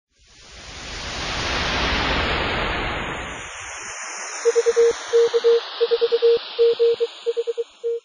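Logo sound effect: a whoosh of rushing noise swells and fades over about three seconds. Then a single mid-pitched beep tone is keyed on and off in Morse code, in short and long pulses.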